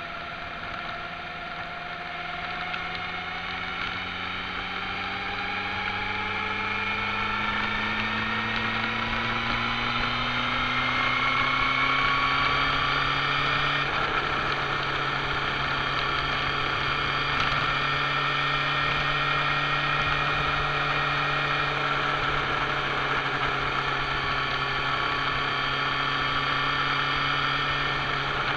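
Motorcycle engine heard from on board while riding, with wind and road noise. Its pitch climbs steadily as it accelerates for about fourteen seconds, then changes abruptly and holds at an even cruise.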